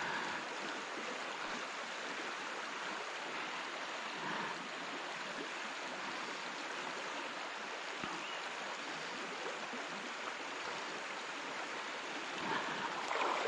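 River water running: a steady, even rush.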